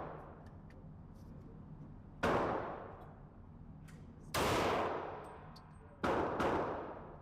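Revolver shots, each followed by a long reverberant decay. There are four shots: two about two seconds apart, then a quick pair near the end.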